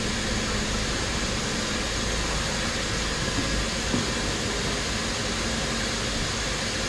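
Laser cutter and its extraction fan running: a steady whooshing noise over a low hum, with a faint knock about four seconds in.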